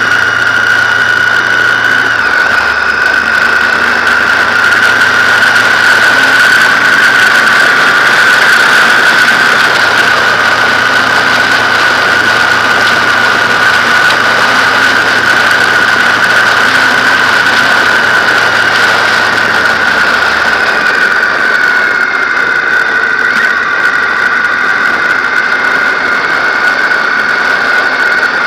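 Onboard sound of a BMW R1200GS flat-twin riding at road speed: a low engine drone that shifts pitch a couple of times and eases off about two-thirds of the way through, under wind noise and a loud, steady high whistle.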